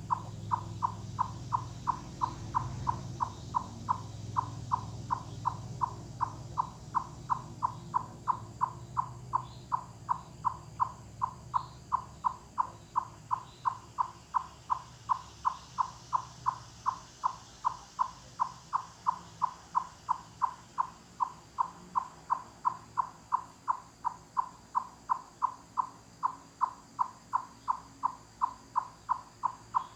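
Eastern chipmunk giving its loud 'cluck' (chuck) call over and over, about three short, evenly spaced calls a second. The uploader takes this calling for communication, perhaps territorial, rather than a predator alarm.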